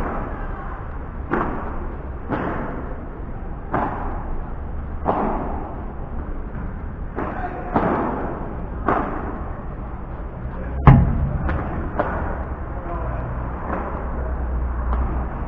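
Padel ball being struck back and forth by rackets in a rally, a sharp pop about every second or so. About eleven seconds in comes one much louder impact with a low thud.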